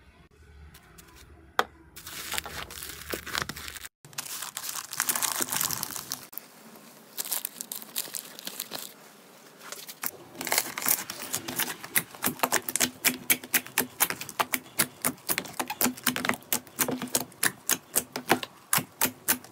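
Slime being squeezed and pressed, giving crinkly crackling, then, from about halfway, a fast run of sharp clicking pops.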